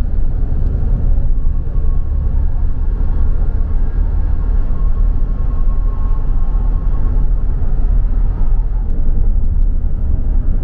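Car driving along a street: a steady low rumble of road and engine noise.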